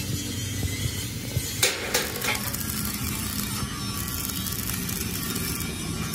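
A few sharp metal knocks, about a second and a half in and twice more just after, over steady workshop noise with a low hum.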